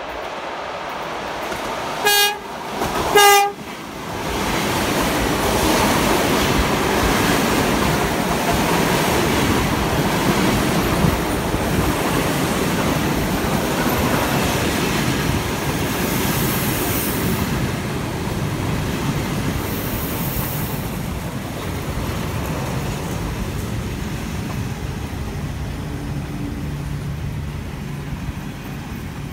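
ED4M electric multiple unit sounds two short horn blasts about two and three seconds in. Then the train rumbles past along the platform, the rumble easing off as it slows to a stop.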